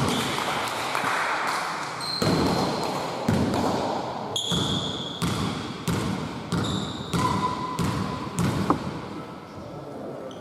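A basketball bouncing repeatedly on a hard court during play, over the hubbub of players' voices, with a few short high squeaks.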